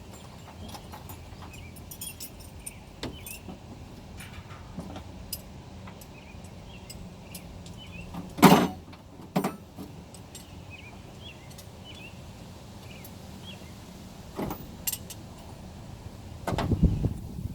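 Scattered knocks and clatter of objects being handled, with a loud bang about eight and a half seconds in, a smaller one a second later, and a run of heavier thumps near the end.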